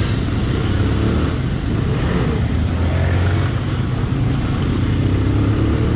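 Single-cylinder engine of a Bajaj Pulsar 220F motorcycle running steadily, a continuous low pulsing hum.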